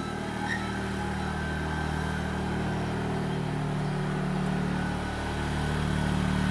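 Small underbone motorcycle engine running steadily at low speed as the bike rides closer, growing a little louder near the end.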